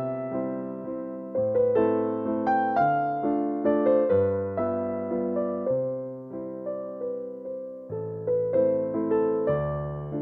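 Background music: a gentle electric piano playing a slow melody over chords, each note struck and fading.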